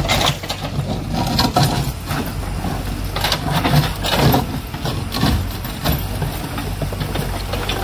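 Backhoe loader's diesel engine running steadily, with irregular metallic clanks and rattles from the working loader.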